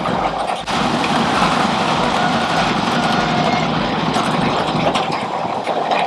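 A poultry barn's chain feeder runs fast along the hens' feed trough while the hens are being fed, a loud, steady mechanical noise. It briefly dips about half a second in.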